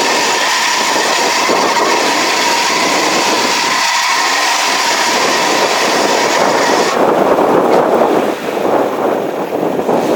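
Lifted Toyota 4Runner on 37-inch mud tyres working through a rocky off-road obstacle: a steady whining hiss for about seven seconds, then rougher crunching and scraping noise.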